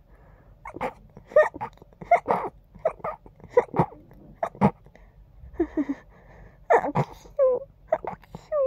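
A rapid string of short, stifled sneezes held back through a congested nose, some ending in brief squeaks that fall in pitch near the end.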